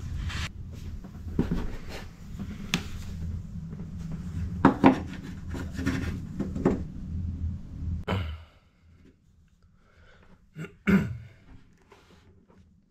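Hands rubbing and knocking around a fibreglass well inside a boat hull: scattered clicks and rubs over a low rumble that stops about eight seconds in, then a couple of sharp knocks near the end.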